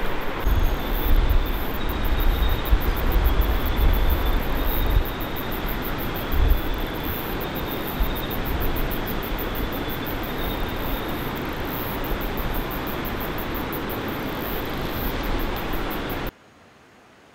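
Steady rushing of river water running over rocks, with wind buffeting the microphone in the first few seconds. It cuts off abruptly about a second before the end, leaving a faint hush.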